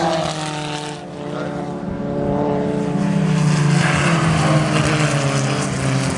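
Engines of historic open-wheel racing cars running at speed on the circuit. One car passes close about four seconds in, the loudest moment.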